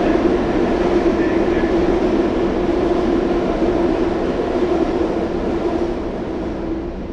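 NYC Subway R62A car running through a tunnel, heard from inside the car at the front window: a steady rumble of wheels on rail with a steady hum over it. Near the end the hum stops and the sound grows quieter.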